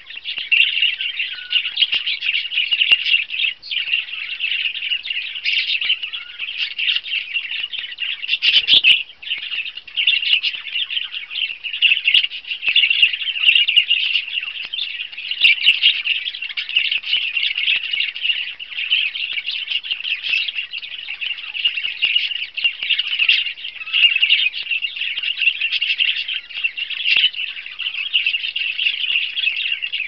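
Budgerigars (parakeets) keep up a continuous, busy chatter of warbles and chirps. A short thump sounds about nine seconds in.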